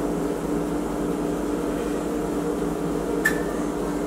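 Steady low hum of a running appliance, with one sharp tick and a brief ring about three seconds in.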